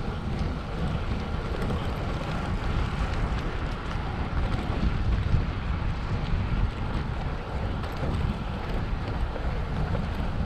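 Wind buffeting the microphone of a camera riding on a moving bicycle: a steady, dense low rumble with a thinner hiss above it.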